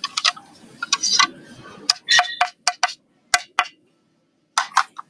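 An irregular run of sharp clicks and light clinks, about a dozen in a few seconds, like hard parts being knocked or handled.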